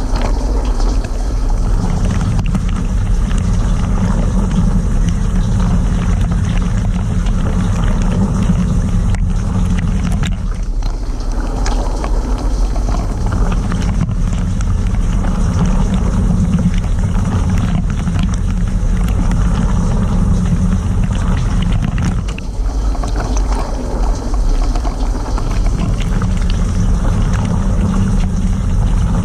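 Cylinda dishwasher's rinse cycle heard from inside the tub: the circulation pump runs with a steady low hum while water sprays and splashes around the machine. The hum eases off briefly twice, about ten seconds in and again a little past twenty seconds.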